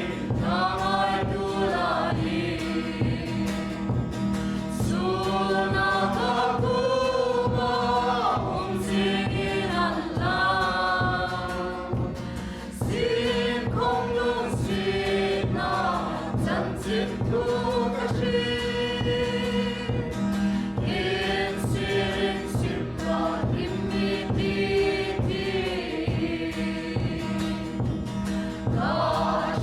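A group of voices singing a gospel hymn together, over a steady sustained accompaniment.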